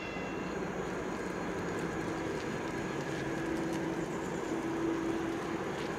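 EP1 electric locomotive hauling a passenger train, a steady rumble of the running train with a hum that grows stronger a few seconds in.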